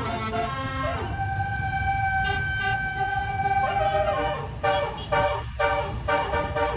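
A bus's basuri melody air horn playing a tune: long held notes that slide up and down in pitch between steps, over a steady low engine rumble.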